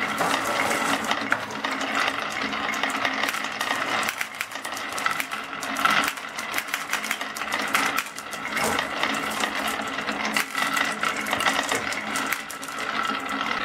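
Many glass marbles rolling down a wavy grooved wooden slope: a continuous rolling rattle with dense clicks as they knock against the wood and each other.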